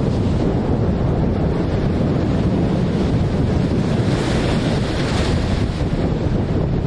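Rough storm sea surging and breaking against the seafront below a promenade railing, with storm-force wind buffeting the microphone in a steady low roar. The hiss of the surf swells louder about four and five seconds in.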